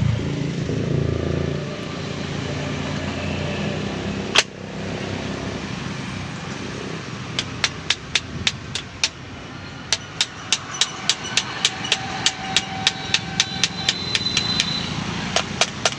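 Hammer tapping on the e-rickshaw motor as it is reassembled with a new shaft: a single sharp strike about four seconds in, then a run of sharp ringing taps from about halfway that settles to about three a second. A steady low hum runs underneath.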